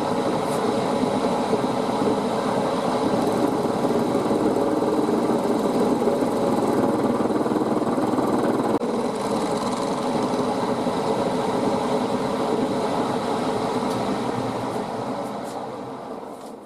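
Milling machine running steadily, then spinning down and falling quiet near the end as it is switched off.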